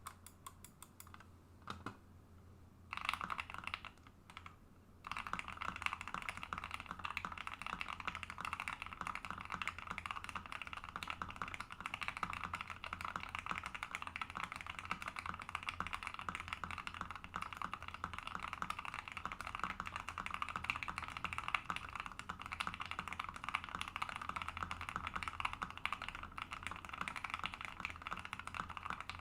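Fast typing on an ikki68 Aurora custom mechanical keyboard with lubed and filmed Gateron Robin switches, an aluminium plate with PE foam, and ePBT PBT keycaps; the springs give a slight crunch the builder notes. A few separate keystrokes at first, a short burst about three seconds in, then steady rapid typing from about five seconds in.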